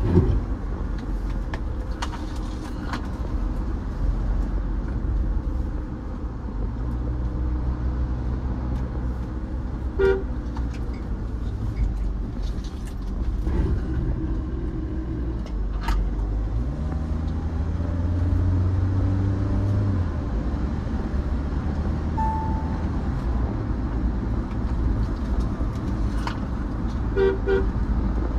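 Mahindra Thar 4x4 automatic on the move: steady engine and road noise, with the engine note climbing as it accelerates a little past the middle. Short car-horn toots sound about ten seconds in and twice near the end.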